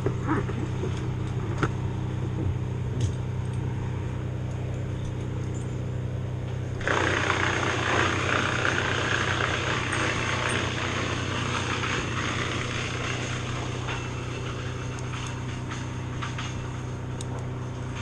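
Wood chipper's engine running steadily; about seven seconds in a loud rush of branches being fed through and chipped starts suddenly and tapers off after about seven seconds.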